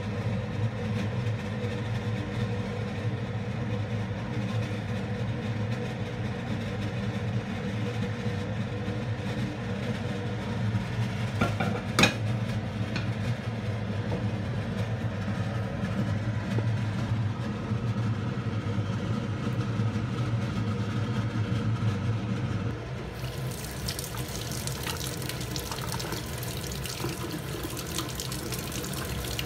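Steady low mechanical hum at the stove while a pan of carrot and corn cooks, with one sharp clack of the pan about twelve seconds in. Then it cuts to a kitchen tap running water into a stainless steel sink as capelin are rinsed under it.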